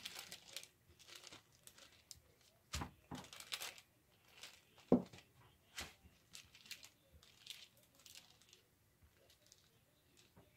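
Wooden rolling pin rolling cookie dough between sheets of wax paper: quiet, irregular crinkling and rustling of the paper, with a few soft knocks, the loudest about five seconds in.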